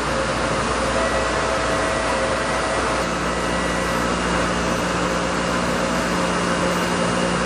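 Thermwood Model 90 five-axis CNC router spindle running a long cutter through low-density foam: a steady rushing machine noise with a few held tones, joined by a lower steady hum about three seconds in.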